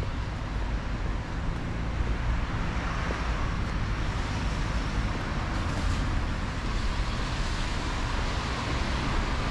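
Steady rumble and hiss of road traffic, growing a little louder and brighter after the first couple of seconds.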